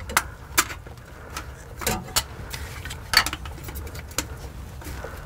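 Scattered light clicks and knocks, irregular, from a band-type oil filter wrench being fitted around a spin-on oil filter and given a final tightening twist, over a faint low hum.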